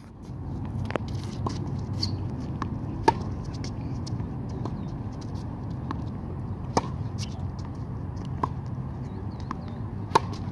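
Tennis ball struck by a racket in a baseline rally: sharp pops every few seconds, the loudest about three seconds in and near the end, with softer ball bounces on the hard court between them, over a steady low rumble.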